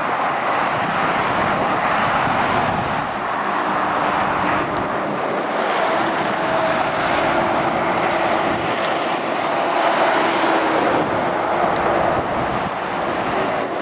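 Continuous motorway traffic heard from above: tyres on the road surface and lorry diesel engines. A faint engine drone comes up from about six seconds in and is loudest around ten seconds as a lorry approaches.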